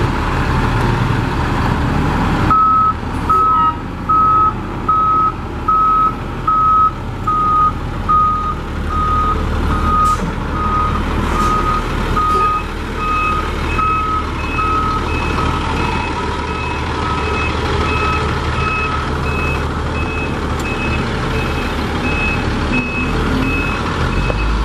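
Detroit Diesel 6-71 twin-turbo two-stroke inline-six of a tandem-axle truck running as the truck is driven, with a reversing alarm beeping steadily at a little over one beep a second. About halfway in a second, higher-pitched beep joins and carries on after the first one stops.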